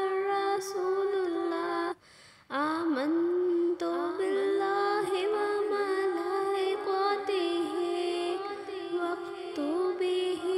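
Background music: a sustained melodic line over steady accompaniment, cutting out briefly about two seconds in and then carrying on.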